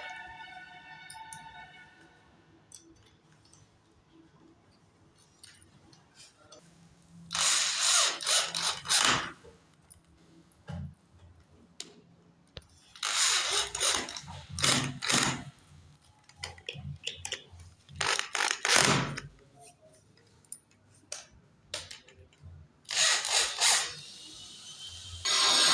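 A handheld carpentry power tool run in four short bursts of one to two seconds each, with quiet between them. A whine fades out at the start.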